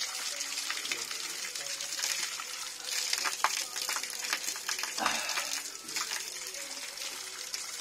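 A thin stream of spring water pouring from a wall spout and splashing steadily onto a wet concrete floor, with louder splashes around three and five seconds in as a man's hands and face break the stream while he drinks.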